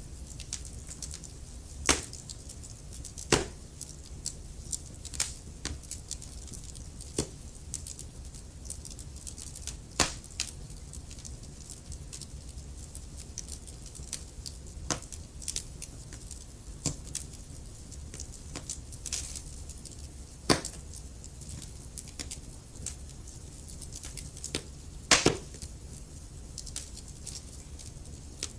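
Wood fire of burning logs crackling: irregular sharp pops and snaps over a low steady rumble of flame, with a few much louder snaps scattered through, the loudest a double pop near the end.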